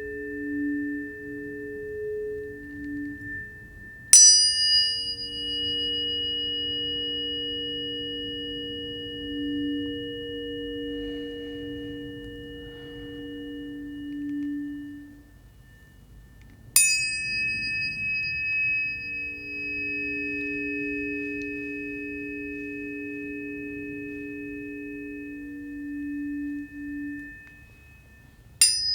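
Tuning forks struck three times, each strike a bright metallic ping followed by a long, pure, slowly fading ringing tone. Lower sustained pure tones swell and fade underneath, as several forks ring together for sound healing.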